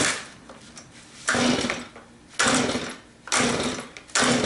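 Stihl two-stroke chainsaw being pull-started on full choke: about five quick starter-cord pulls, roughly one a second, each a brief rasp of the recoil starter and the engine turning over. The engine never fires, the sign of a saw that will not start after long storage.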